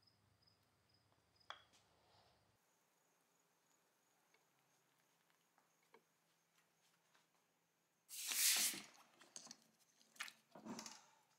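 Mostly faint, then about eight seconds in a loud splash and hiss lasting about a second as the gun barrel and magazine tube, just out of the hot bluing salts, go into a tub of rinse water. A click and smaller splashes follow near the end.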